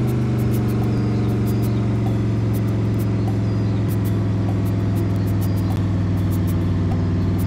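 Bus engine running at a steady, unchanging drone while driving, with frequent light ticks and rattles over it.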